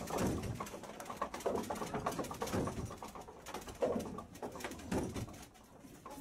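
The wooden gearing and camshaft of a hemp-beating windmill turning slowly, with irregular knocks and low creaking moans.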